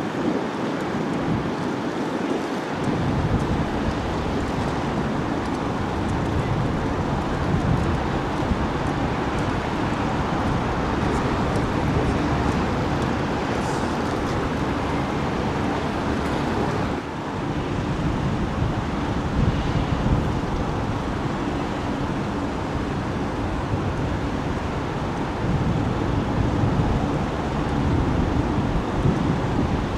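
Jet airliner engines heard across the airfield: a steady roar mixed with wind on the microphone. The sound changes abruptly a little past halfway, to an airBaltic Airbus A220's engines at taxi power.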